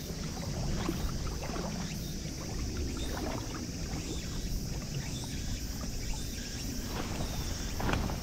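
Steady low wind noise on the microphone, with a few faint scattered ticks.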